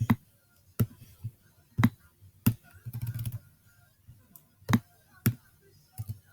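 Computer mouse and keyboard clicks: single sharp clicks at irregular intervals, with a short run of quicker rattling clicks about three seconds in.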